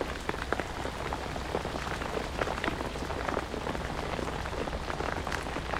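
Rain falling steadily, a dense patter of many small drop hits.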